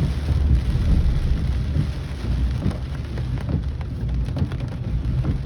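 Heavy rain falling steadily, with a deep continuous rumble underneath.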